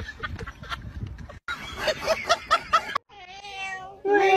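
A domestic cat's long, drawn-out meow starting about three seconds in, quieter at first and louder near the end. Before it come two short stretches of other sound that each cut off suddenly.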